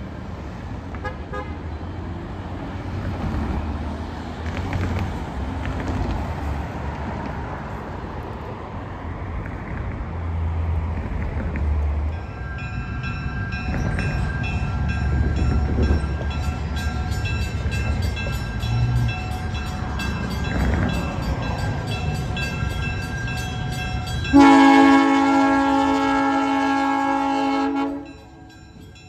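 Diesel switcher locomotive approaching with its engine running, then sounding one long air-horn blast of about three and a half seconds near the end, a chord of several steady notes that is the loudest sound and cuts off sharply.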